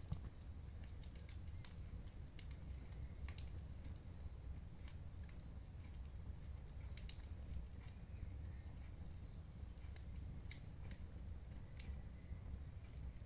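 Wood fire burning in a fireplace, crackling with irregular sharp pops over a steady low rumble of the flames.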